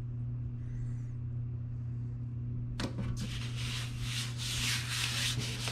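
Palms rubbing a new adhesive label flat against a plasma cutter's sheet-metal case, pressing out air bubbles, starting about halfway through as a continuous scraping rub. A steady low hum runs underneath.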